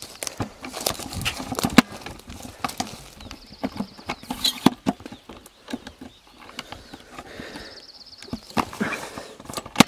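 Rustling, footsteps and scattered knocks from people moving in dry logging slash and handling the camera, with a few sharp louder knocks. A high trilling note repeats about every four seconds in the background.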